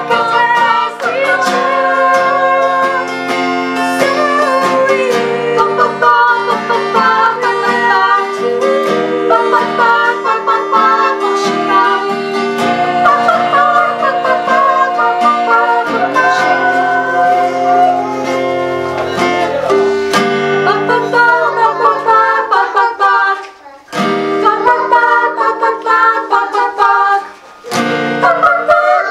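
A group of girls singing together to a strummed acoustic guitar. The music breaks off briefly twice near the end.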